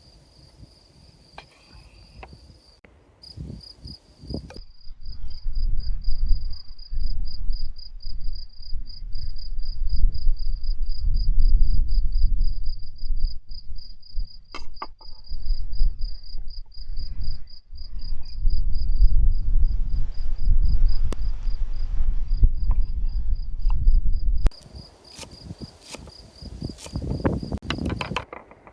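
Crickets chirring in a steady high pulsing trill, several pulses a second, over loud irregular low thuds and rumble that run from about four seconds in until an abrupt drop near the end.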